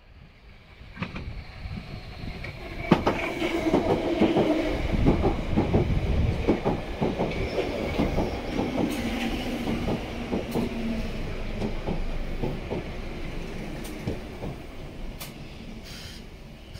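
A London Underground 1972 Stock train of the Bakerloo line pulls into the platform and brakes to a stop. Its wheels clatter and click over the rail joints, with a whine from the train beneath. The sound builds from about a second in, is loudest as the train runs past, and fades as it slows.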